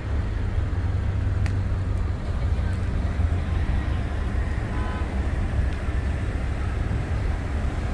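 Traffic noise from a slow-moving line of cars and pickup trucks, a steady low rumble with no distinct events.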